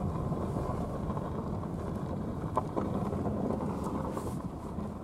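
Car driving slowly over a rough, snow-covered dirt track, heard from inside the cabin: a steady low rumble of engine and tyres, with a couple of faint knocks a little past halfway.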